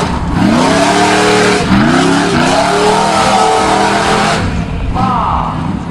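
Off-road 4x4's GM LS V8 engine revving, its pitch climbing in several successive pulls.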